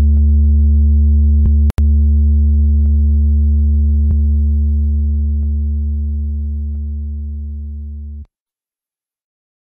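A loud, low electronic drone held on one steady note, with a brief dropout about two seconds in. It slowly fades and then cuts off abruptly about eight seconds in.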